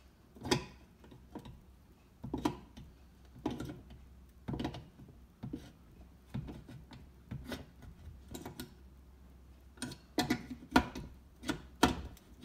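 Big adjustable wrench clamped on a Dayton blower's sheet-metal mounting flange, clicking and knocking about once a second as the flange is bent over in small steps. There is a quicker run of clicks near the end.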